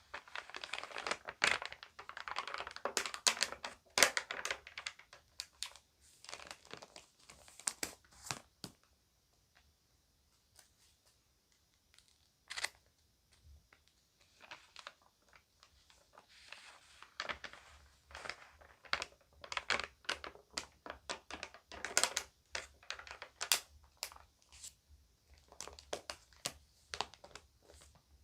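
Crinkly glossy magazine pages being handled and turned, crackling and rustling in bursts. There is a quieter stretch in the middle with only a few light clicks.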